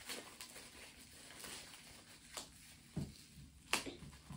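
Quiet handling noises: plastic wrapping rustling and things being handled on a table, with a low knock about three seconds in and a sharp click just after.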